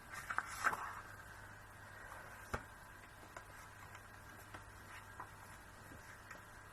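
Paper and card stock being handled and shuffled: a short flurry of rustling in the first second, then scattered light taps and ticks, with one sharper tap about two and a half seconds in, over a faint steady hum.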